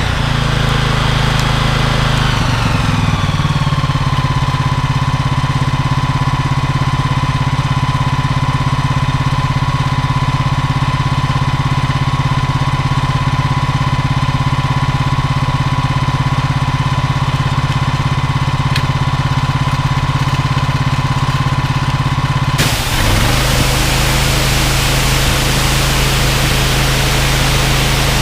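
Honda GX390 single-cylinder petrol engine driving a belt-driven pressure washer pump: with no load, its automatic governor brings it down to tick-over a few seconds in, and it idles steadily. About 22 seconds in the water spray hiss starts again suddenly and the engine picks up speed under the load.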